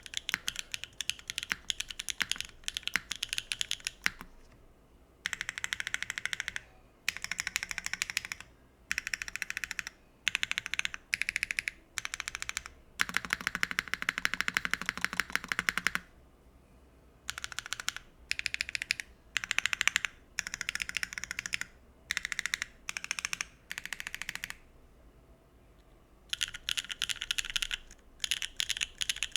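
Typing on a Neo60 Core mechanical keyboard with HMX Cosmic Purple switches on a carbon-fibre plate and no foam: bursts of rapid keystrokes separated by short pauses.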